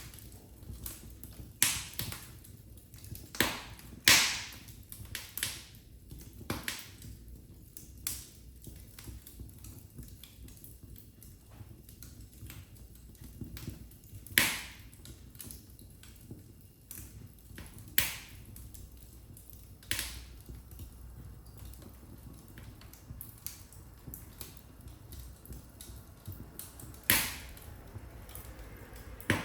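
Wood fire in a fireplace crackling: sharp, irregular pops and snaps over a soft low rumble, with the loudest pops about four seconds in and near the end.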